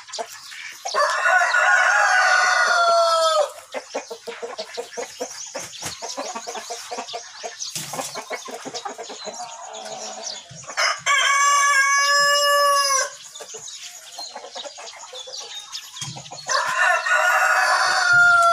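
Peruvian gamefowl roosters crowing three times, about a second in, halfway through and near the end; each crow is long and drawn out and drops in pitch at its close. Hens cluck quietly in between.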